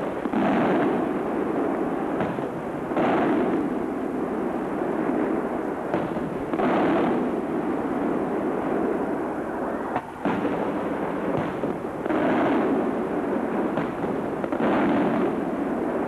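Aerial firework shells bursting one after another: a heavy boom every few seconds, each lasting about a second, five in all, with a few sharper single cracks in between.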